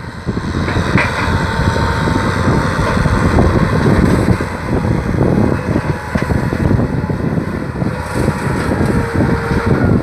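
Kubota tractor's diesel engine running steadily under load while ploughing a rice field.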